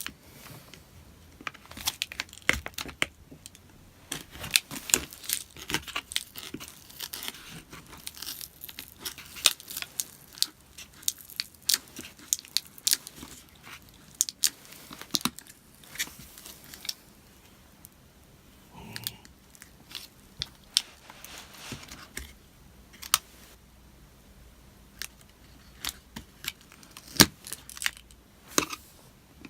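Glued lithium-polymer battery cell being pried up from a MacBook Pro A1398's aluminium case: the adhesive crackles and tears in irregular small snaps and clicks as it gives way.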